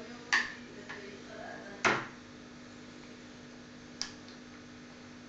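Plastic spoon clicking and knocking against a plastic bowl and high-chair tray: a few separate sharp clicks, the loudest about two seconds in, with a smaller one about four seconds in.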